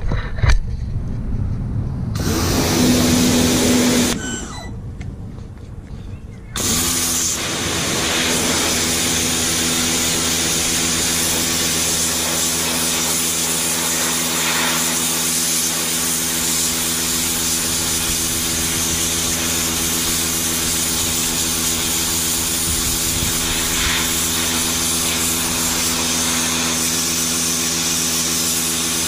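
Michelin MPX 14E 1400 W electric pressure washer: its motor runs briefly about two seconds in and drops away. From about six seconds in it runs steadily, a hum under the hiss of the high-pressure water jet striking soil and grass.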